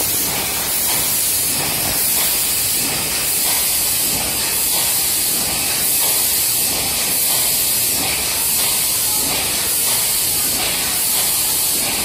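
Packsoul rotary sticker labeling machine running on a factory floor: a steady, loud hiss with a faint regular pulsing as the machine cycles.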